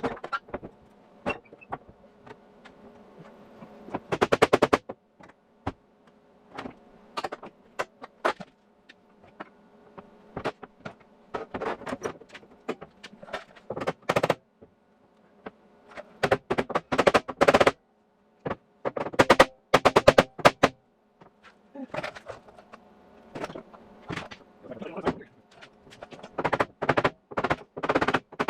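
MIG welder laying short bursts of weld, each a spurt of rapid crackling lasting about half a second to a second and a half, with a faint steady hum between them.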